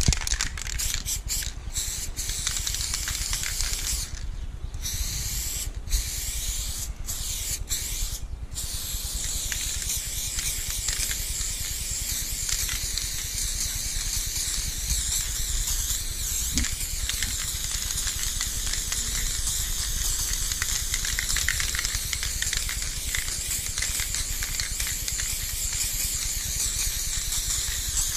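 Aerosol spray paint can spraying: a hiss in short bursts with brief breaks for the first several seconds, then spraying almost without a pause.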